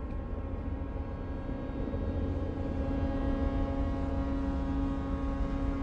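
Steady low rumble of cargo ships' engines on the river, with a held low tone joining about a second and a half in.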